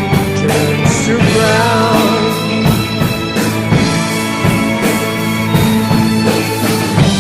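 Rock music with a steady drum beat and sustained bass, in a passage between sung lines; a lead line bends up and down in pitch about one and a half seconds in.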